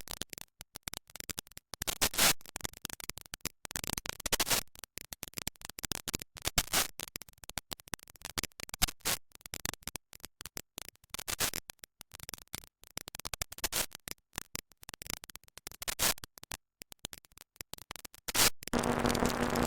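Computer-generated sonification of NASA Ulysses spacecraft data: dense, irregular crackling clicks with louder clusters every two seconds or so, the clicks standing for micrometeorite impacts on the spacecraft. About a second before the end it changes to a steady hiss with two low held tones.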